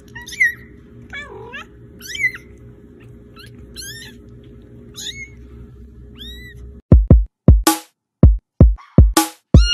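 Very young kitten mewing over and over, thin high mews about once a second over a steady low hum. About seven seconds in this gives way to music with hard, evenly spaced electronic beats.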